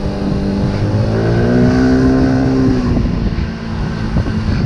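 Small scooter engine running under the rider, its pitch rising about a second in as it speeds up, then dropping back a little before three seconds in.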